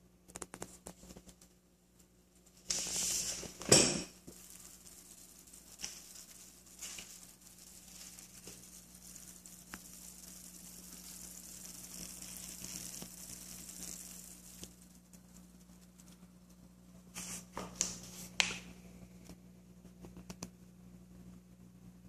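Aquarium filter running with a steady low hum while its outflow splashes and fizzes at the water surface among rising bubbles. A sharp knock with rustling about four seconds in, and a few more knocks about seventeen to eighteen seconds in.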